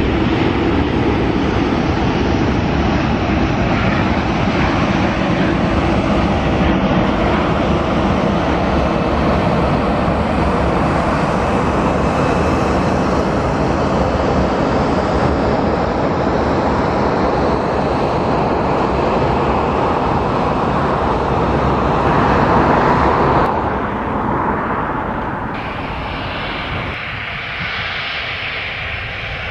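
Gulfstream G650's Rolls-Royce BR725 turbofan engines running: a steady loud jet rush for most of the stretch that swells to its loudest, then falls away. Near the end the engines run lower and quieter as the jet taxis.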